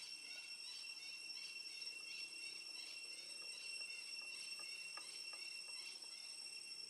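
Insects in the forest making a steady high drone, with a chirp repeating about twice a second that dies away near the end.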